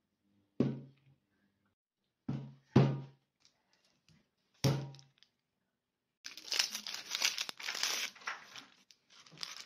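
Four short thunks in the first five seconds, then, from about six seconds in, the dry papery skin of an onion crackling and tearing as it is peeled off with a knife.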